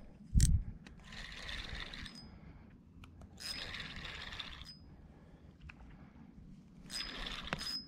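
Spinning reel buzzing in three spells of about a second each while a hooked trout is played in, with a sharp knock about half a second in.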